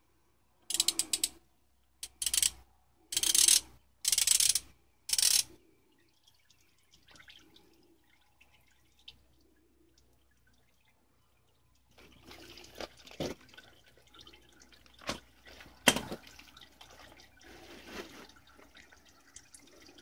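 Half-inch drive ratchet clicking in five quick bursts as it unscrews an oil filter cartridge housing. From about twelve seconds in, oil runs and drips steadily from the loosened housing into a catch tray, with scattered sharp drips.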